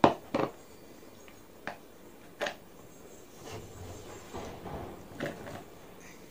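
Sharp plastic clacks as the lid of a Butterfly hand chopper is taken off its jar and set down, the first one loud, then a few single knocks. After that comes soft rustling and knocking as pieces of cut onion are gathered on the chopping board and dropped into the jar.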